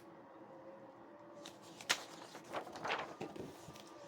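Paper handling, most likely a page of a children's picture book being turned: a sharp click about two seconds in, then a few short rustles, over a faint steady hum.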